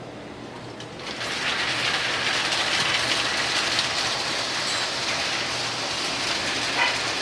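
Model train running on its track, a steady mechanical rattle of motor and wheels that grows louder about a second in and then holds.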